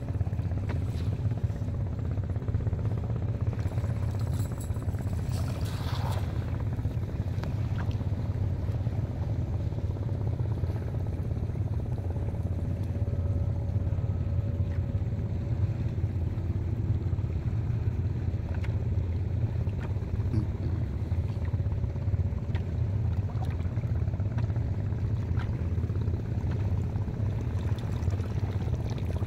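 A steady low rumble throughout, with a short splash about six seconds in as a cast net lands on shallow sea water. Water drips and trickles from the net as it is hauled up near the end.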